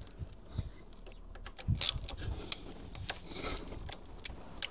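Hand tool clicking and tapping on metal while the ignition coil bracket is taken out of the engine bay: scattered irregular clicks, the loudest about two seconds in.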